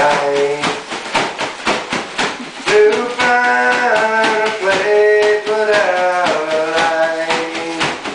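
Accordion-style music played by squeezing an inflated garbage bag like bellows: reedy held chords that change every second or so over a quick, steady beat.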